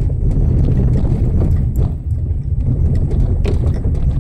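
Car driving on a wet road, heard from inside the cabin: a steady, loud low rumble of engine and tyres, with a few short clicks.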